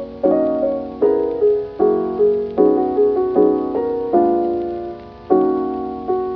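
Background music: a mellow keyboard piece of sustained piano-like chords and melody notes, struck every half second or so.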